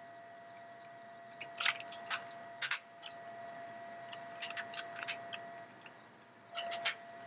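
Computer keyboard keys being tapped in irregular clusters of sharp clicks, over a faint steady tone.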